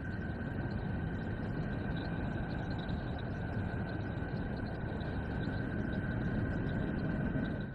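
Sonified spacecraft recording of a planet's radio emissions: a steady, dense rumbling static with a constant high whine over it, fading out right at the end.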